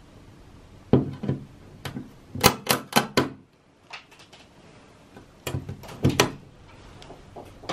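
Pliers clicking and snapping on the small plastic weatherproof plugs in a van's roof-rail holes as they are broken out from inside. Sharp clicks come in a few groups, the quickest a run of four about two and a half seconds in.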